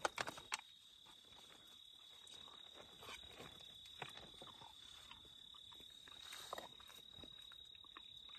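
Faint clicks and rustling of a spoon in a freeze-dried meal pouch as the food is tasted, with a few sharper clicks at the start. A steady high-pitched tone sounds throughout.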